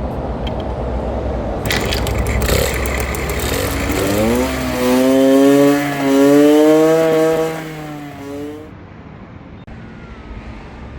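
Minsk 125's single-cylinder two-stroke engine running, rising in pitch and revving about four seconds in, holding a wavering high note for a few seconds, then dropping back to a quieter steady run.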